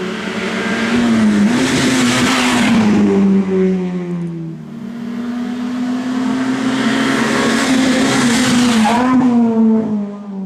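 Race car engine at high revs, its pitch wavering and gliding down as the revs drop. It grows loud twice: up to about three seconds in, and again from about six to nine seconds.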